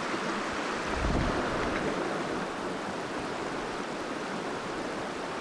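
Steady rush of a mountain trout creek running over a riffle, with a brief low bump about a second in.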